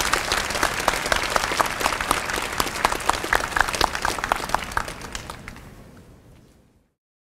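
Audience applauding after a speech, a dense patter of many hands clapping that fades out over the last couple of seconds and cuts to silence.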